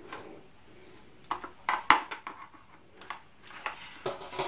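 Plastic housing of an Oase BioPlus Thermo 50 aquarium internal filter handled and turned over, giving a string of sharp clicks and knocks, the loudest just under two seconds in.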